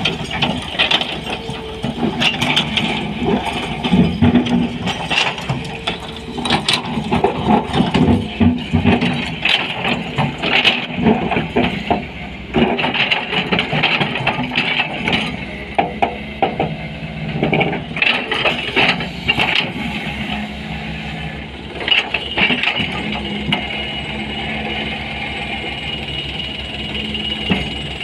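SANY 220 excavator's diesel engine running under load while its steel bucket digs and scrapes through broken rock, with repeated knocks and clatter of stones against the bucket. Near the end the clatter stops and the engine runs more evenly.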